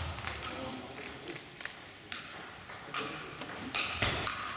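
Table tennis balls making sharp clicks on bats and tables, scattered through, in a large sports hall, with faint voices.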